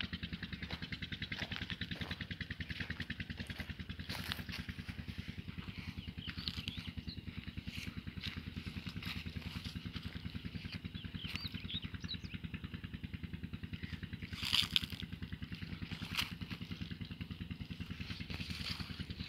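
Belarus 510 tractor's diesel engine idling with an even, rapid beat, with a sharp knock about fifteen seconds in.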